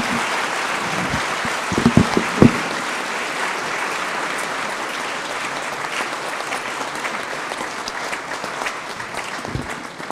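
Audience applauding with steady clapping that thins into scattered claps near the end. A few dull knocks come about two seconds in.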